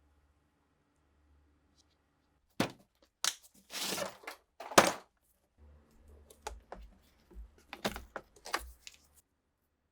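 Handling of hard objects: separate clicks and knocks with a short scrape about four seconds in and one sharp knock a little under five seconds in, then a run of lighter clicks.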